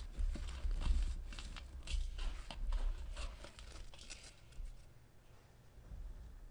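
A dry sand-and-cement block crumbling in the hands, with gritty crunching and loose sand rubbing and trickling into a glass bowl. The crunches come thick and irregular at first and thin out about halfway through.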